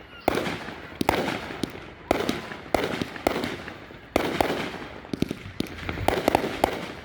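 Aerial fireworks bursting overhead: a rapid run of sharp booms about every half second, each trailing off, then from about four seconds in a denser flurry of quick pops and crackles.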